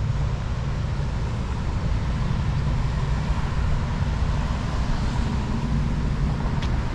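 Steady outdoor rumble of wind buffeting the microphone, mixed with the hum of road traffic.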